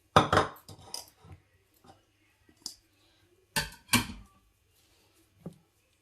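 Dishes clattering and knocking in a kitchen as a mixing bowl and the dishes around it are handled. The clatter comes in two loud bursts, one just at the start and one about three and a half seconds in, with a few lighter knocks between.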